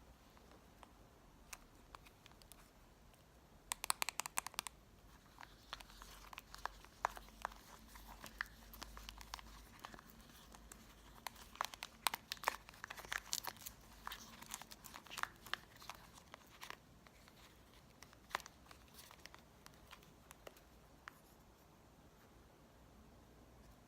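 Close-miked crinkling and crackling of crinkly wrapping being handled. A dense run of sharp crackles starts about four seconds in and lasts until about seventeen seconds, then thins to a few scattered clicks.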